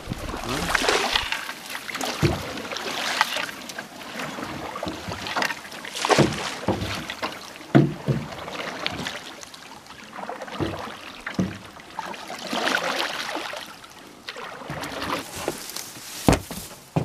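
Paddling a small boat through shallow, reedy water: swishing strokes every second or two, with reeds brushing the hull and a few sharp knocks.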